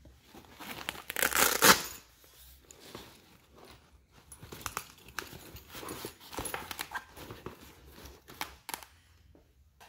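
Hook-and-loop (velcro) on a Dead On Tools tool-belt pouch, made of poly ripstop fabric, ripped apart with a loud tearing rasp about a second in, then the pouch flaps rustle and rasp as they are handled and pressed down, with a few sharp clicks near the end.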